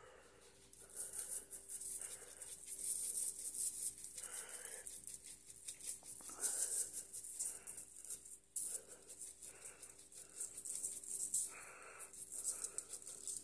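Lemon pepper shaken from a shaker jar onto fish fillets on aluminium foil: a dry, hissing rattle of granules in repeated spells of shaking.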